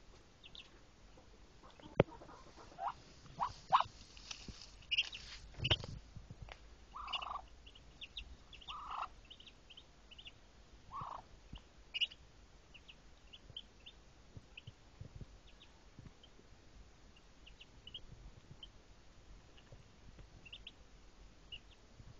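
Newly hatched Muscovy ducklings peeping in many short, high chirps under the sitting hen, with a few lower, longer calls in the first half. Sharp knocks and a rustle of nest straw in the first six seconds are the loudest sounds.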